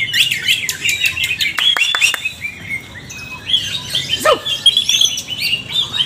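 Several caged green leafbirds (cucak ijo) singing at once: a dense, overlapping stream of chirps and whistled phrases, with quick sharply falling notes about two seconds in and again past four seconds.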